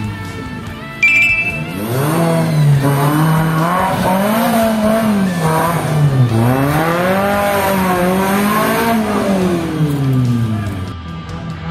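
Tubular off-road buggy's engine revving hard up and down several times as it drives the dirt track, the pitch climbing and falling with each push of the throttle. A brief high squeal about a second in.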